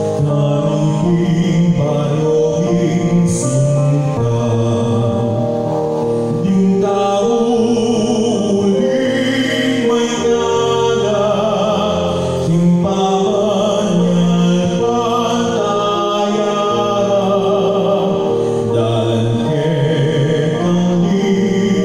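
A devotional song to the Virgin sung in Kapampangan over musical accompaniment, with a steady, continuous melodic line.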